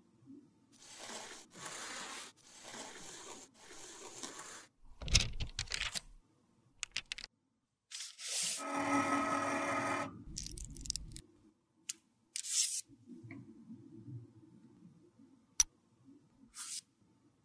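Metal spatula scraping and pressing loose pink blush powder into a round pan, in about four strokes, then a few sharp clicks. About eight seconds in comes a louder rasping, buzzy rub lasting about two seconds, followed by scattered light taps and clicks of the pan being handled.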